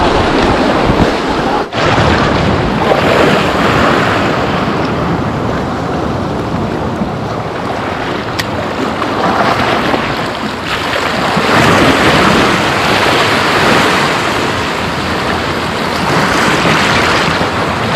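Sea waves washing over shoreline rocks, the rush swelling louder every few seconds, with wind on the microphone.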